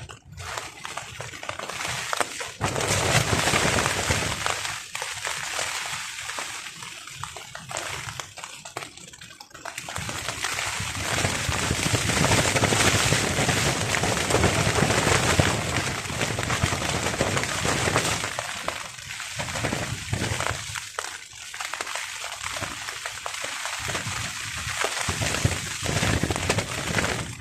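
Heavy rain falling on a tarp, with strong wind gusts that swell and die away every several seconds.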